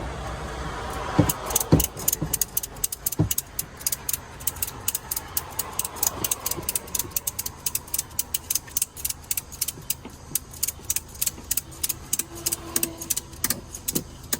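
Ratchet tie-down strap being cranked tight: a few knocks at first, then a long run of quick, even ratchet clicks, about four to five a second.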